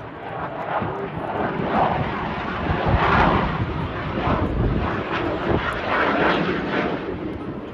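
Fixed-wing aircraft engine noise from a plane flying over, swelling about three seconds in and staying loud.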